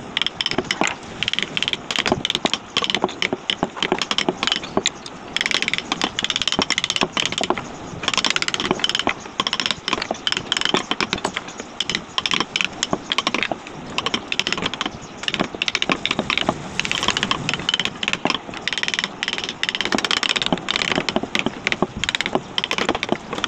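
Wooden-handled carving gouges clicking and clattering as they are picked up and laid down on a carved wooden panel, in many quick sharp knocks.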